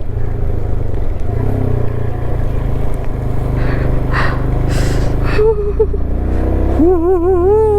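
Royal Enfield Himalayan's single-cylinder motorcycle engine running steadily as a low, even rumble. Near the end a person's voice gives a long, wavering 'ooh' over it.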